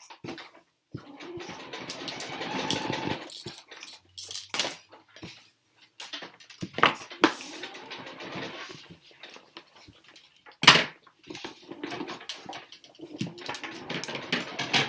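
Two experimental film soundtracks playing over each other: irregular rustling and scraping noises broken by short clicks and knocks, with one sharp knock about ten and a half seconds in and brief dropouts to silence.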